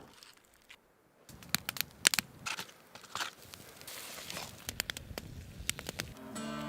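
Irregular crackling and crunching clicks, many short sharp snaps. Music with steady notes comes in near the end.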